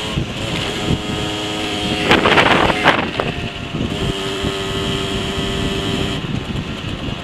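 Rieju SMX moped's 50cc two-stroke engine running at a steady cruising speed through its standard exhaust, heard onboard with wind rushing over the microphone. A louder burst of rushing noise comes about two seconds in, and the hiss drops about six seconds in.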